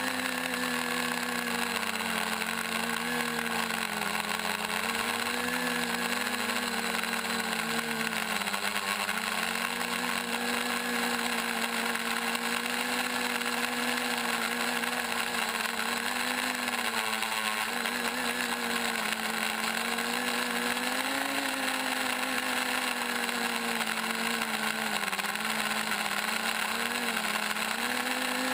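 Quadcopter's four brushless motors (2836, 950 kV) and propellers whining steadily, heard from the craft's onboard camera. The pitch keeps rising and dipping slightly as the throttle changes in flight.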